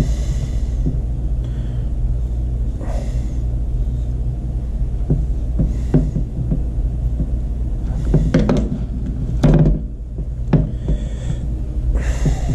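Knife scraping and slicing through burbot skin, with gloved hands rubbing and knocking the fish against a plastic cutting board: short scrapes and knocks over a steady low rumble.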